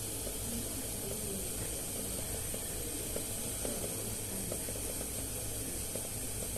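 Steady background hiss with a low hum, and faint light clicks and taps scattered through the middle.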